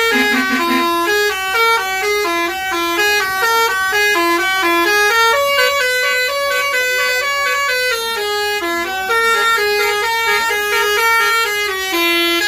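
Bus basuri musical horn playing a tune, a fast run of short stepped notes with no break.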